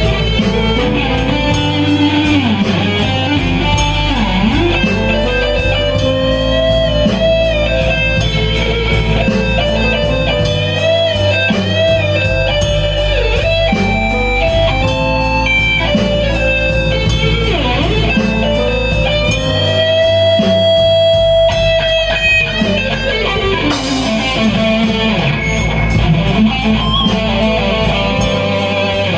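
Blues-rock band playing: an electric guitar lead with string bends and slides and long held notes over bass and a steady drum beat.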